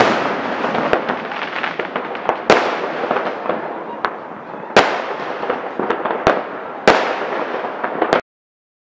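Fireworks going off: sharp bangs every second or so over a steady crackling, cutting off suddenly near the end.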